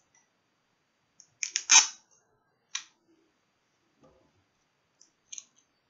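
Sticky tape being pulled and torn to cover the air holes in a plastic enclosure lid: a cluster of sharp crackling snaps about a second and a half in, the loudest part, then a few lighter clicks.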